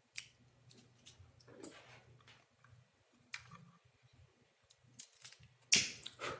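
A lighter held to a gas leak detector to test it: scattered faint clicks and handling noises, then a louder sharp, scratchy burst near the end.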